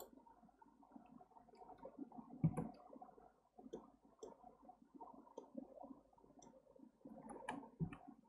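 Faint clicks of a computer mouse and keyboard, scattered at irregular intervals over a low background murmur, with two louder knocks, one about two and a half seconds in and one near the end.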